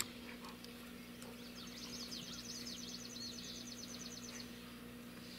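Quiet outdoor ambience with a songbird singing a quick, rapidly repeated high trill from about a second and a half in until past four seconds, over a faint steady low hum.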